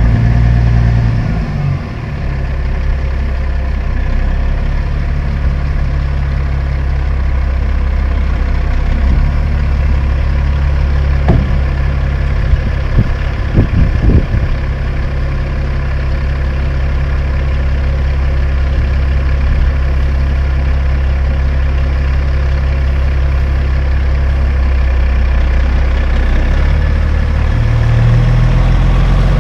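Caterpillar diesel engine of a Kenworth T800H tandem dump truck running steadily at a low idle, with a few sharp knocks about halfway through. Near the end the engine picks up a little as the truck pulls forward.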